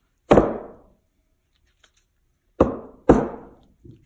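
Chunks of scrap steel set down as weights on a plywood mold table: three sharp knocks, one near the start and two about half a second apart later on, with a faint fourth just after.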